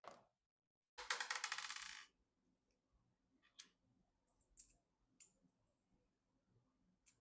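Small hardware being handled during a PC build: a rapid metallic rattle of clicks lasting about a second, about a second in, followed by scattered light clicks and taps.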